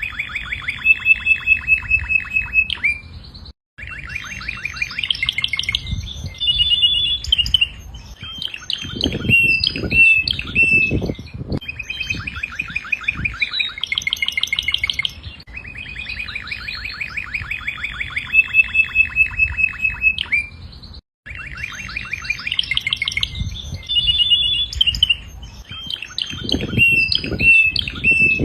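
Domestic canary singing: fast trills and rolls in phrases, each held a second or two before switching to the next. Two brief sudden breaks, about three and twenty-one seconds in.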